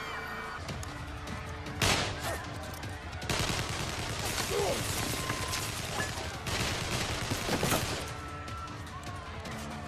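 Movie shootout soundtrack: gunfire, several shots with the loudest about two seconds in and another near the end, over background music.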